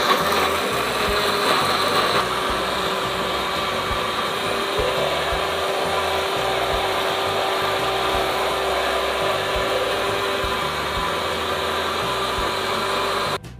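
Countertop electric blender running steadily, grinding red chilies with water into a smooth paste; the motor cuts off suddenly near the end.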